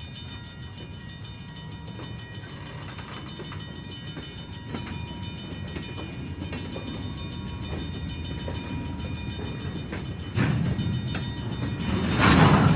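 Train-crossing sound effect: a train's low rumble with scattered clicks of wheels on rail. It swells about ten seconds in and is loudest near the end, as the train passes.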